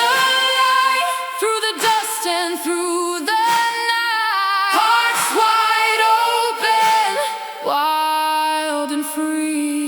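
Background music: a sustained female vocal melody with vibrato, held notes changing about every second, with no beat.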